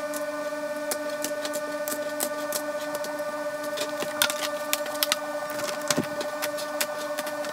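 Clear plastic macaron trays clicking and crackling as macarons are set into them and the plastic lid is pressed shut, the sharp clicks growing more frequent over the last few seconds. A steady hum runs underneath.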